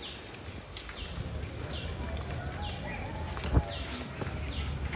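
Steady high-pitched insect drone from the trees, with a short falling chirp repeated about once a second. A single thump a little past halfway is the loudest sound.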